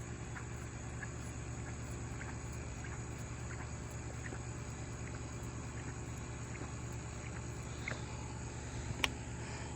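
Soft, faint squeezes of the primer bulb on a 33cc two-stroke mini tiller being pumped before a cold start, over a steady low hum. There is a sharp click about nine seconds in.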